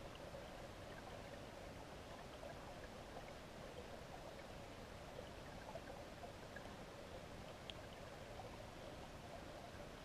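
Steady, muffled hiss of flowing river water heard underwater through a GoPro's sealed housing, with faint scattered ticks and one sharper click about three-quarters of the way through.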